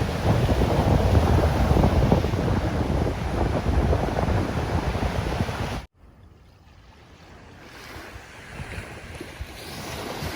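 Ocean surf with a steady loud rush of breaking water and wind on the microphone, which cuts off abruptly about six seconds in; quieter waves then build back up in a slow swell toward the end.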